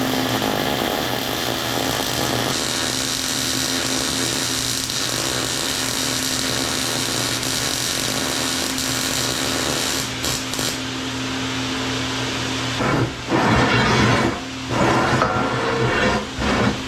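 An electric power tool's motor running steadily with a constant whine. Near the end it bites into metal in several louder, rough bursts.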